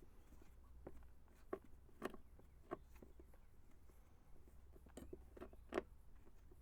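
Faint scattered clicks and knocks, about seven spread over several seconds, from tools and parts being handled while starting to take a motorcycle's seat and tail section apart, over a low steady room hum.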